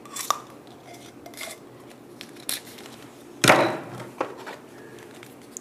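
Steel drill bits knocking against a moulded plastic tool case as they are handled: a few light clicks, then one louder clatter about three and a half seconds in.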